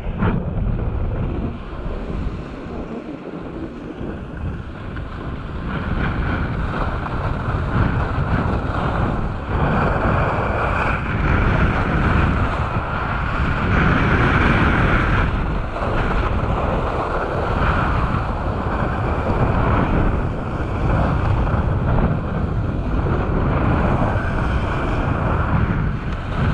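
Wind rushing over an action camera's microphone during a fast ski descent, with skis hissing and scraping over packed groomed snow. The rush is lighter for the first few seconds, then grows louder and rises and falls.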